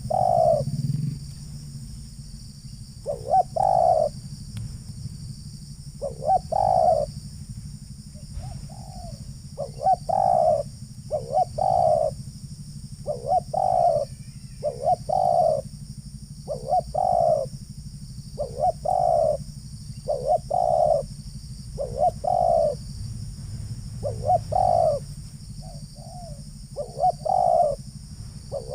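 Spotted doves cooing over and over, in short groups of two or three coos a couple of seconds apart, over a steady low rumble.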